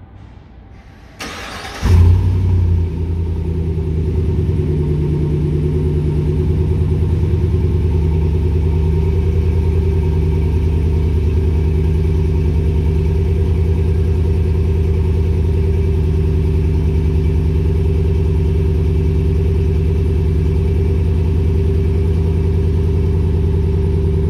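GMC Sierra AT4 pickup with a Gibson aftermarket exhaust starting up: the starter cranks about a second in, the engine catches with a short rev about two seconds in, then settles into a steady, deep idle.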